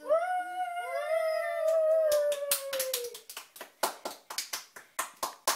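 Children giving a long drawn-out cheer in two overlapping voices, sliding down in pitch. Then hand clapping, about four claps a second, starts around two seconds in and goes on.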